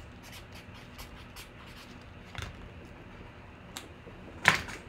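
A few scattered light clicks over a low steady room hiss, with one sharper, louder click about four and a half seconds in.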